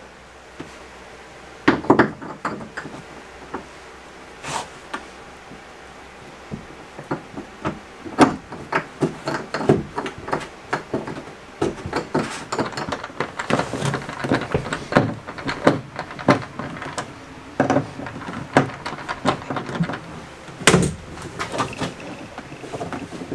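Plastic drain and overflow pipe parts knocking and clattering against a bathtub as the drain kit is fitted by hand: irregular handling knocks and taps, with louder knocks about two seconds in and near the end.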